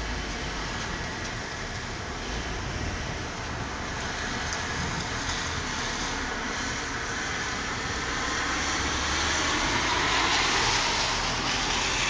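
Steady rushing rain in a thunderstorm, growing louder about nine seconds in.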